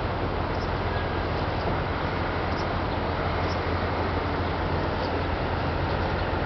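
Steady low rumble of engines and road traffic, with an even noise over it and no single event standing out.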